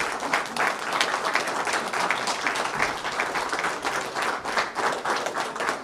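Audience applauding: many hands clapping at once, dense and irregular.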